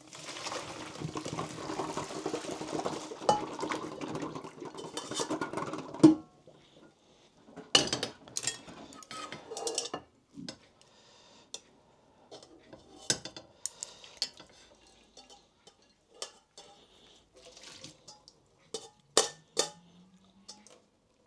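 Kitchen tap running as something is rinsed out, a steady rush of water that stops abruptly about six seconds in with a loud knock. After that, pots, pans and utensils clink and knock now and then.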